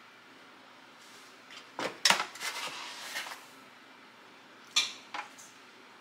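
Granulated sugar tipped from a plastic measuring cup into a metal stand-mixer bowl: a short rush of pouring grains with clinks and knocks about two seconds in, then two sharp clinks near the end as the cup meets the bowl.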